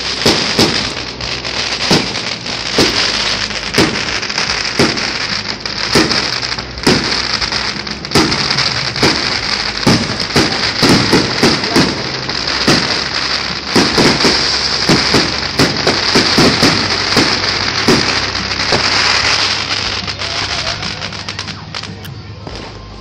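Aerial fireworks shells bursting in a rapid, irregular run of sharp bangs over a continuous crackling hiss. The bangs come thickest in the middle and thin out near the end.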